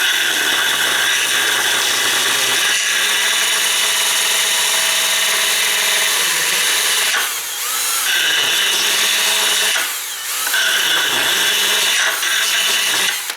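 Electric drill spinning a file bit, grinding down a small edge. The motor eases off and speeds back up twice, then stops abruptly at the end.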